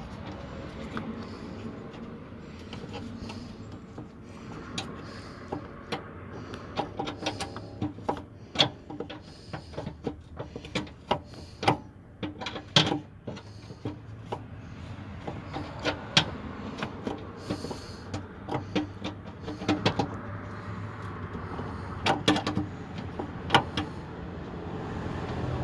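Hand ratchet clicking in short, uneven runs, with scattered metallic clicks and knocks, as the fender mounting bolts are tightened.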